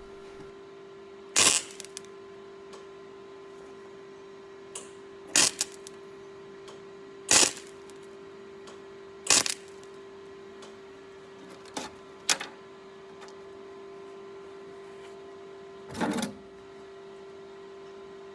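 MIG welder laying a series of brief tack welds on thin threaded steel: about seven short bursts a few seconds apart, over the welder's steady hum.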